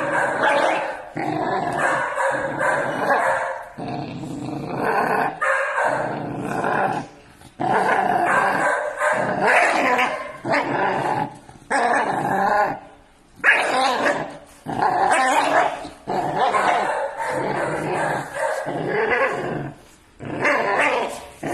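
Six-month-old pit bull puppies growling while they tug at a rag toy, in long growls broken by short pauses, with a few sharper barks.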